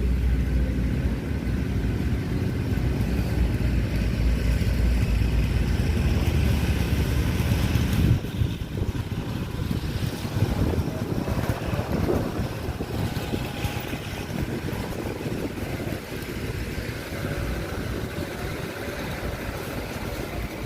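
A low rumble with noise over it, heavy for the first eight seconds or so, then dropping suddenly to a lighter rumble.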